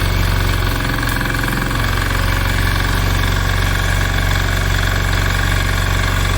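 An engine running steadily at an even speed, with a brief wavering in its low tone about a second in.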